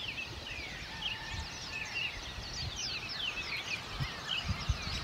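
A dawn chorus of many birds singing, a busy overlap of short, high, downward-sliding chirps. Beneath it runs a low rumble, with a few soft thumps near the end.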